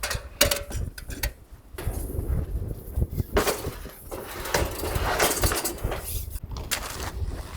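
Clinks and knocks of camping gear being handled while packing up camp, over a rumble of strong wind buffeting the microphone.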